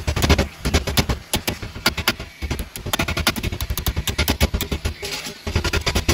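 Hammer striking the steel petals of a metal rose held in a bench vise: a fast run of sharp metal-on-metal blows, several a second, with a brief pause about two and a half seconds in.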